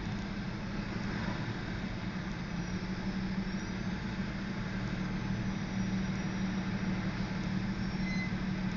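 Steady low hum of idling vehicles, heard from inside a car, as a freight train of boxcars rolls slowly through the crossing; a few faint high squeals come and go near the end.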